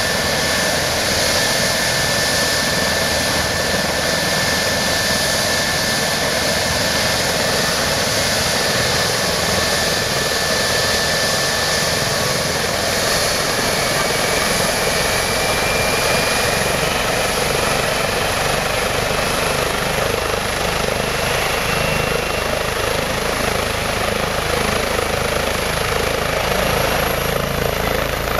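Airbus Helicopters EC135's twin turboshaft engines and main rotor running on the ground at high power, a steady, loud rush of rotor and turbine noise. A high turbine whine rises slowly in pitch over the second half as power comes up for take-off.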